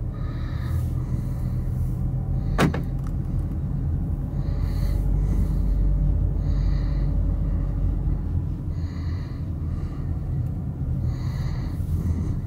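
Car cabin noise while driving slowly: a steady low rumble of the engine and tyres, with soft hisses recurring every two seconds or so and a single sharp click about two and a half seconds in.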